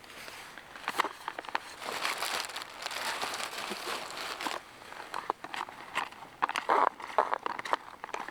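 Crinkling and rustling of a foil-lined Mountain House freeze-dried meal pouch being handled, with many sharp crackles.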